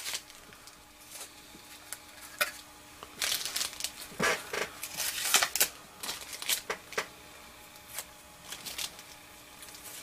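Masking tape being peeled off a painted plastic model bus body and crumpled in the fingers: short, irregular crinkling rips, a dozen or so.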